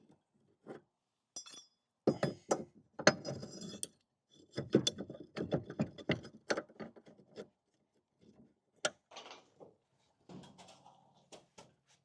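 Hard objects clicking, knocking and clinking in quick irregular runs, with short pauses between the runs.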